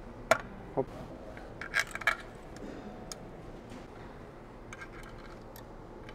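Hand work on a car transmission's underside: a few sharp metallic clicks and clinks of parts and tools being handled, the loudest about a third of a second in, a pair around two seconds in, and a faint scatter near the end.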